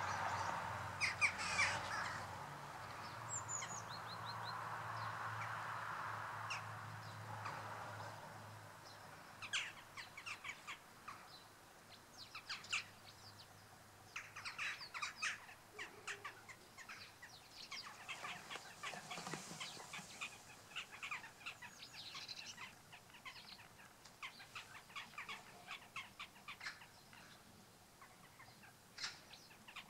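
Wild birds calling: many short, sharp calls in quick clusters from about nine seconds in. Before that, a steady low hum with a rushing noise fades out over the first several seconds.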